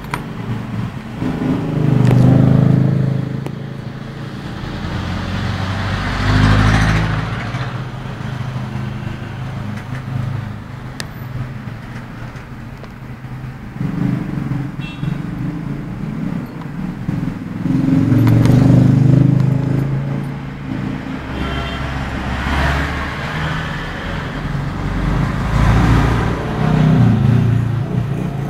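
Road traffic: motor vehicles passing, a low rumble that swells up and fades away about five times.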